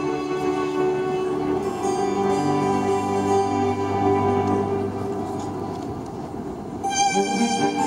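Orchestra with strings playing held notes over a low sustained bass note in a large stone cathedral. About seven seconds in, the music swells louder and brighter as higher parts come in.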